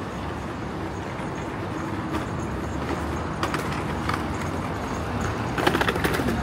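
Busy city street ambience: a steady hum of traffic with a few hard clicks like footsteps on pavement, and a quick run of louder clicks near the end.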